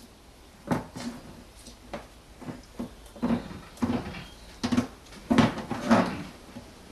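Knocks and clunks of hard plastic as the BMW E90's windscreen washer fluid tank is worked loose and moved in the wheel arch, about eight in a row.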